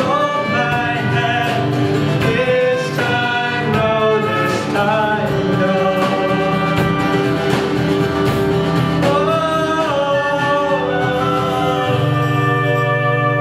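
Live band performing a song, with several voices singing together over the instruments. It ends on a held final chord near the end.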